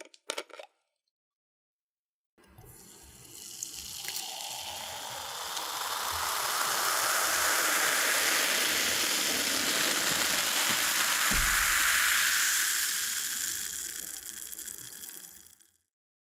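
Cola being poured into a glass in one long pour: the stream and its fizz build up, hold, and then taper off. A couple of brief clicks come just before the pour starts.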